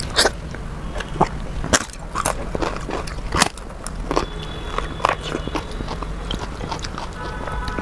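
Close-miked eating: chewing of soft dal khichdi with repeated sharp crunches as a crisp papad is bitten.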